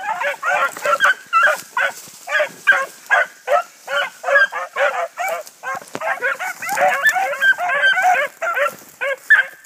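A pack of beagle-type hounds baying and yelping continuously, many voices overlapping in a rapid chorus: the pack is giving tongue while running a scent trail.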